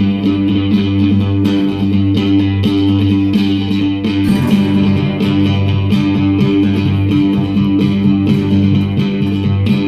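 A live band playing the instrumental introduction to a song, over a steady low bass line.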